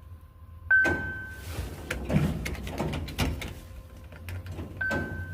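Mitsubishi elevator chime sounding a single high tone about a second in and again near the end. Clicks and knocks in between fit the car doors moving.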